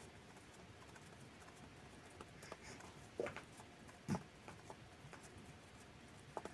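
Faint soft pats and light knocks of stiff dough being rounded into balls by hand on a floured silicone mat, with two slightly louder knocks about three and four seconds in.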